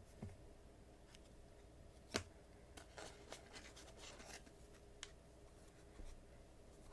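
Faint handling of trading cards: a few light clicks and rubs, the sharpest about two seconds in.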